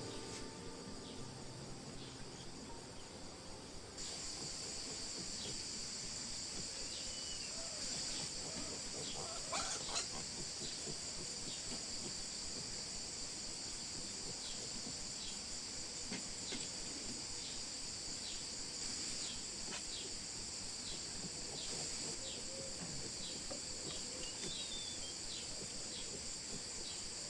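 Dense, steady high-pitched buzzing of an insect chorus, which grows louder about four seconds in. Scattered light clicks and a few short chirps run through it.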